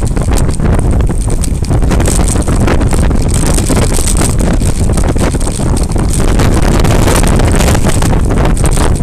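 Steady wind noise buffeting a bike-mounted action camera's microphone on a moving road bike, loud and unbroken, mixed with road noise from the bikes.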